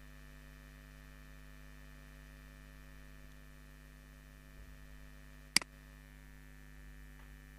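Steady electrical mains hum on the recording, broken once by a single sharp click of a computer mouse as the taskbar icon is clicked.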